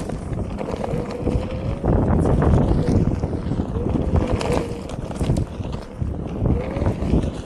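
Wind rushing over the microphone and the rumble of a single-wheel electric board rolling fast over a dirt trail. A faint motor whine rises and falls in pitch several times, and there are scattered clicks and knocks from bumps in the trail.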